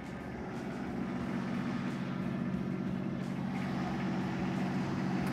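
Ditch Witch HX30 vacuum excavator's engine running steadily, getting a little louder about half a second in.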